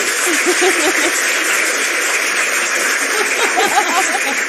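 Recorded crowd applause and cheering played as a welcome sound effect, an even clapping hiss that starts and stops abruptly, with a little laughter underneath.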